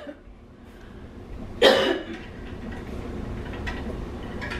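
A woman coughing once, a single short harsh cough about a second and a half in, over a faint low hum.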